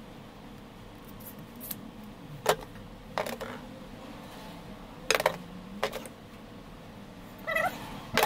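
Small metal parts being handled and set down on a workbench: a handful of irregular light clicks and clinks, spaced a second or so apart.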